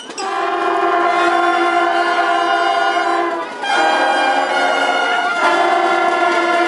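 Music of long, steadily held chords in three blocks, the chord changing about three and a half seconds in and again about five and a half seconds in.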